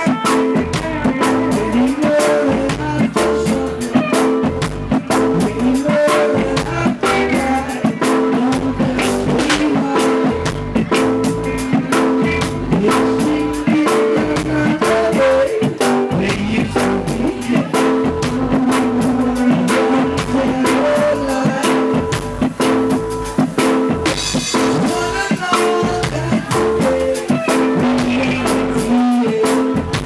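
Live band music: a drum kit beat with guitar and held keyboard chords.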